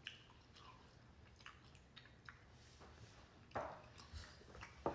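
Quiet chewing of food, with scattered soft mouth clicks and two slightly louder smacks, about three and a half seconds in and just before the end.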